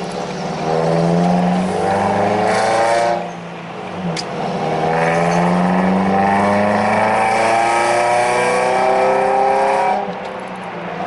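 2001 Ford Focus ZX3's 2.0-litre four-cylinder with aftermarket headers and exhaust, heard from inside the cabin, pulling up through the revs for about three seconds. It dips briefly with a click, as on a gear change, then pulls again at lower pitch for about five seconds before easing off near the end. The exhaust gives a loud, droney note.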